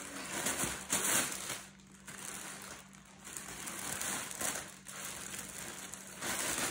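Plastic packaging crinkling as it is handled and opened: a black plastic mailer bag, then a clear plastic bag with a jersey inside, in irregular rustling bursts with short lulls.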